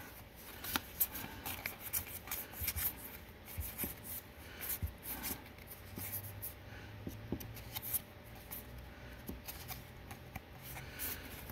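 Magic: The Gathering trading cards being handled and flipped through one at a time: quiet, irregular soft clicks and slides of card against card.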